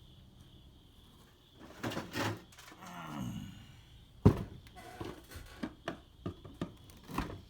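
Objects being handled and set down: clunks and knocks, with one loud thump a little past four seconds in, followed by a run of smaller clicks and taps.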